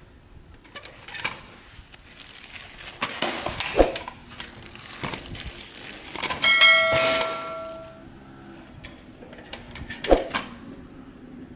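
Scattered clicks and knocks of objects being handled, with one bell-like ding about six and a half seconds in that rings on for over a second before fading.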